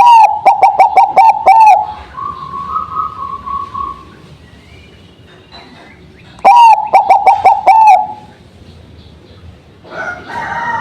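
Zebra dove (Bangkok-type perkutut) singing: two loud phrases, each a quick run of short repeated notes lasting under two seconds, one at the start and another about six and a half seconds in.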